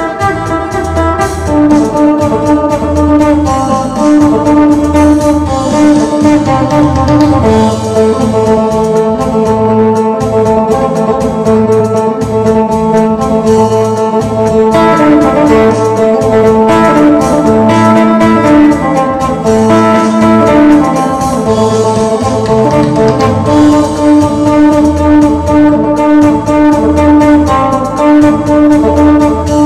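Phin (Isan three-string lute) playing a fast lam phloen-style tune over its drone strings, with a steady low bass pulse underneath.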